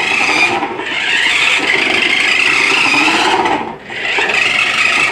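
Battery-powered Bratz remote control toy car's small electric motor and plastic gearbox whirring as it drives. It eases off briefly twice, the second time deeply about four seconds in.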